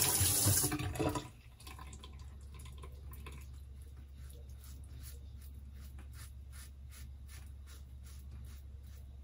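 A tap runs for about a second. Then a Rockwell 6C double-edge safety razor scrapes through lathered stubble in short strokes, a few a second, over a low steady hum.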